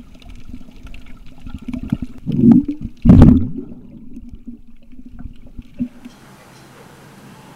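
Underwater sound around swimming Galapagos sea lions: muffled water sloshing with scattered clicks, and two loud gushes of bubbles about two and a half and three seconds in. After about six seconds it drops to a faint steady hiss.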